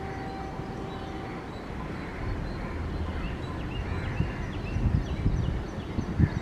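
Diesel locomotive rumbling and growing louder from about two seconds in, with heavy low thuds coming more often near the end. Birds call above it.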